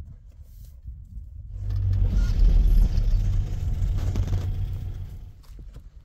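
Car driving along a rough dirt track, its engine and road noise heard from inside the cabin. The sound swells loud about a second and a half in and fades near the end.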